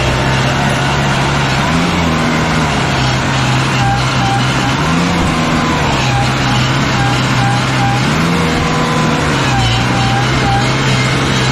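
New Holland tractor's diesel engine running hard under load as it skids a log through deep mud on chained tyres, the engine pitch swelling up and settling back every few seconds.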